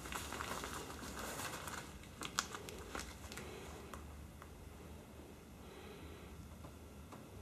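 Faint cloth rustling and crinkling as a glove is handled for about two seconds, then a few light clicks of laptop keys.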